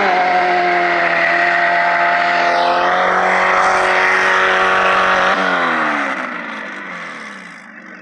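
Stripped-down front-wheel-drive car doing a burnout. Its engine is held at steady high revs while the tires spin and squeal. About five seconds in the revs fall away as it lets off.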